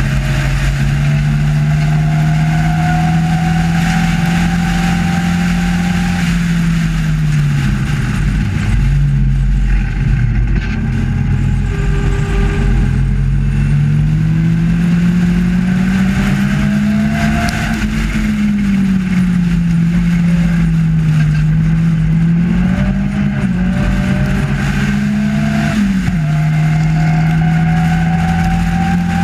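Racing sports car's engine at full race pace from the open cockpit, its note rising and falling with the revs through the corners and dropping sharply near the end, with steady wind rush over the car.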